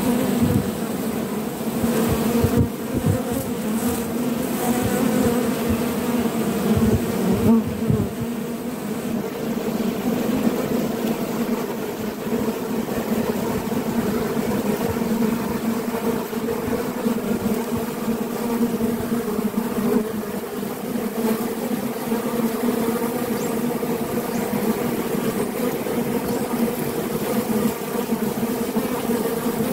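Many honey bees buzzing at a hive entrance: a steady hum of wingbeats that carries throughout, with a few brief knocks in the first eight seconds.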